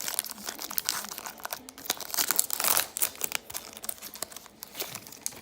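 Hockey card pack wrapper being torn open and crinkled by hand. There is a run of irregular crackling with a louder stretch about two to three seconds in, growing sparser near the end.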